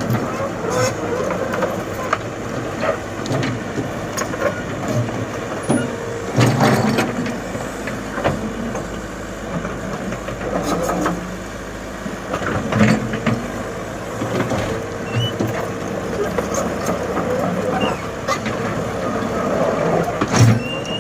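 Komatsu excavator running and travelling, its engine at a steady drone with scattered metallic knocks and clanks.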